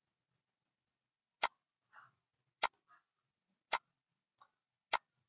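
Computer mouse clicking: four sharp single clicks roughly a second apart, each followed about half a second later by a fainter, duller click.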